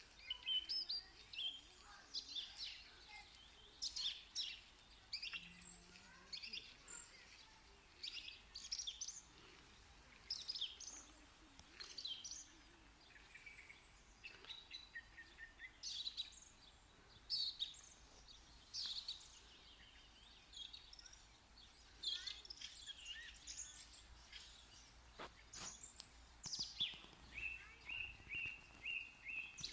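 A bird singing and chirping: many short, quick high notes, with a fast run of evenly repeated notes near the end.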